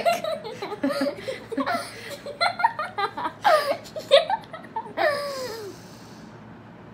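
A woman laughing in a string of short bursts that fade out near the end.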